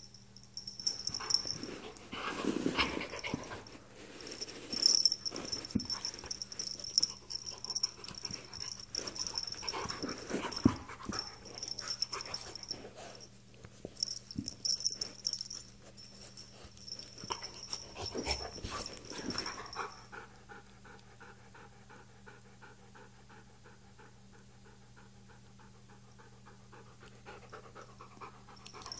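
Siberian husky panting in fits and starts while wrestling with a cat, with fur and paws scuffling on the carpet.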